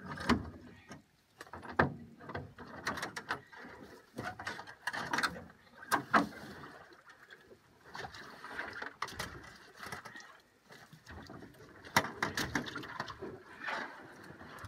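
Irregular knocks, clatter and rustling as a trapped beaver is hauled from the river through brush into an aluminium boat.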